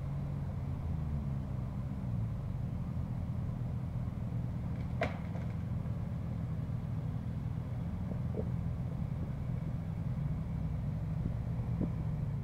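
Vehicle engine idling with a steady low rumble; a single sharp click about five seconds in.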